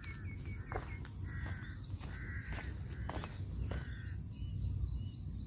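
Outdoor rural ambience: insects droning steadily at a high pitch, with birds giving several short harsh calls and a few higher chirps toward the end.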